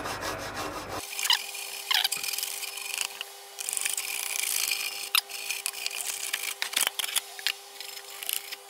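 Toothbrush scrubbing a saw blade wet with degreaser: an irregular scratchy rubbing of bristles over the metal and teeth, with a few short squeaks, as pine resin gumming is scrubbed off.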